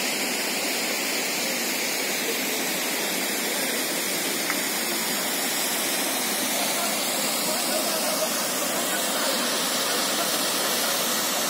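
Steady rushing hiss of water from the river and small waterfall in the rocky gorge below.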